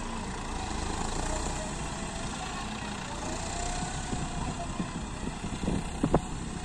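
John Deere 4x4 tractor's diesel engine running steadily as it pulls a trolley loaded with soil, with a few short knocks near the end.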